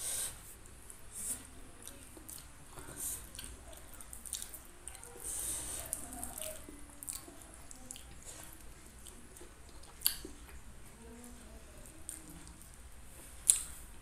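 Close-miked eating of fried chicken by hand: wet chewing and mouth smacks, with two sharper clicks, one about ten seconds in and one near the end.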